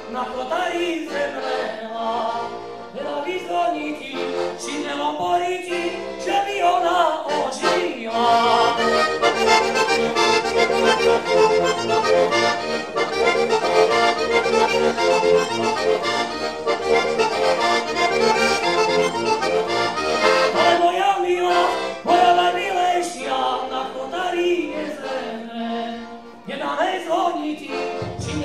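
A diatonic button accordion (heligónka) playing an instrumental passage of a folk tune, with quick runs of melody notes through the middle over a pulsing bass accompaniment.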